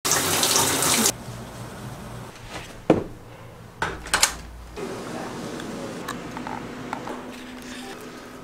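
Shower spray hissing loudly for about the first second, cutting off abruptly, then quiet room tone with a few sharp knocks and clicks about three and four seconds in.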